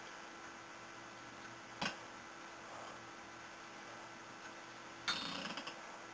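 Sleeping pit bull snoring: a short, sharp snort about two seconds in and a longer snore about five seconds in that fades out, over a steady low hum.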